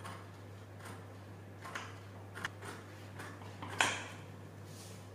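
Scissors cutting a canvas sheet in about five separate snips, the loudest near the end, over a steady low hum.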